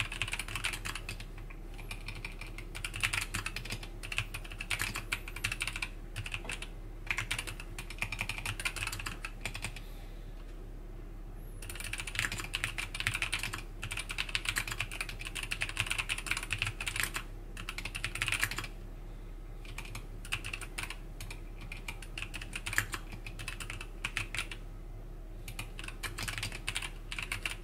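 Typing on a MelGeek Mojo84 mechanical keyboard with Kailh Custom Box Brown tactile switches: fast runs of key clacks, with a short pause about ten seconds in and another near twenty seconds. A steady low hum sits underneath.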